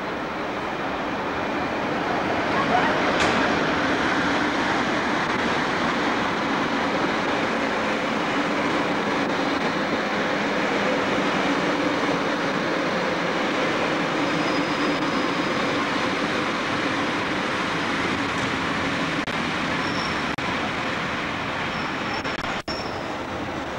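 A Swiss Federal Railways electric locomotive and its passenger coaches rolling past along the platform: a steady rumble of wheels on rail that builds over the first few seconds and then holds, with a few short high squeaks in the second half. The sound cuts out for an instant near the end.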